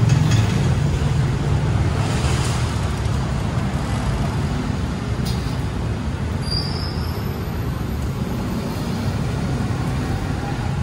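Steady road traffic noise beneath an elevated expressway, a low rumble of passing vehicles, with a brief high squeal about six and a half seconds in.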